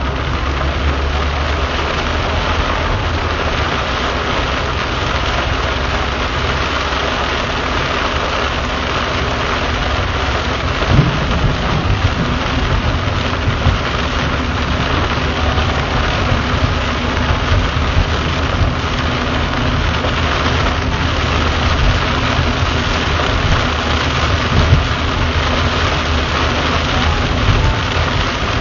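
Heavy rain pelting a moving car's roof and windshield, heard from inside the cabin as a dense, steady hiss over the low rumble of the car on the road. A few short thumps stand out, about a third of the way in and again near the end.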